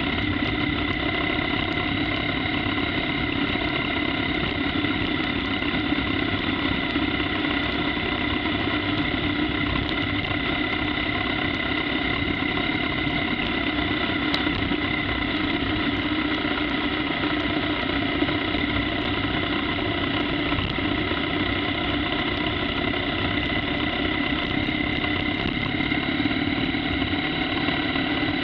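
2015 BMW R1200GS Adventure's liquid-cooled boxer-twin engine running at a steady, unchanging pitch while the bike is ridden along at an even speed.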